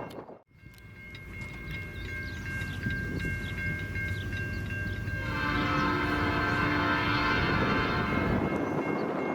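Diesel freight locomotive horn: a faint steady note at first, then a louder long blast from about five seconds in, lasting about three seconds. Wind buffets the microphone throughout.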